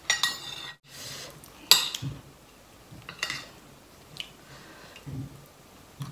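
Metal spoon clinking and scraping against a large bowl as curry is scooped up. There is a ringing clink right at the start, a louder sharp clink just under two seconds in, and a few lighter taps after.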